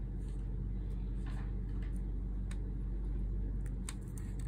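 Steady low hum in the background, with a few faint ticks and clicks of fingers handling a small video transmitter and pressing its antenna lead onto the connector.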